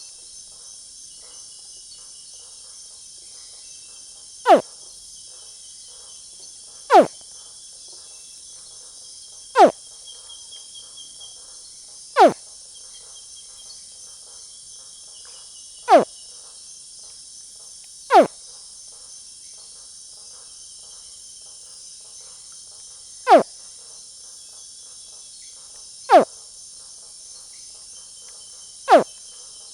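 A small juvenile caiman, about 50 cm long, screaming: nine short, sharp calls that each drop steeply in pitch, repeated every two to five seconds. A steady high-pitched chorus of night insects runs underneath.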